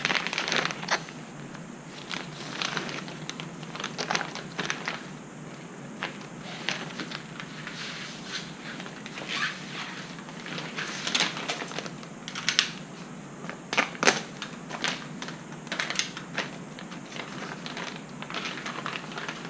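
Packaging of a new light kit being opened and handled by hand: irregular crinkling, rustling and light clicks throughout.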